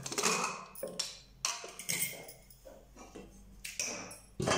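Aluminium pressure cooker's lid being worked loose and lifted off: a string of irregular metal clicks and knocks, a few a second.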